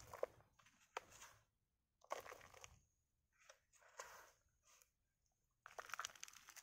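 Moist soil being scooped and sprinkled by hand over seeds in a plastic seedling tray: a gritty crunching rustle in several short bursts about a second apart.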